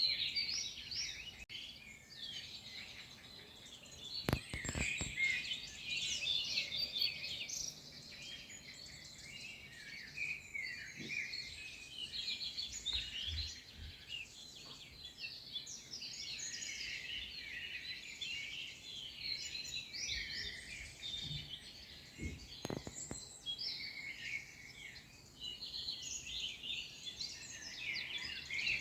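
A chorus of songbirds chirping and singing over one another without a break, with a few brief knocks about four seconds in and again near the end.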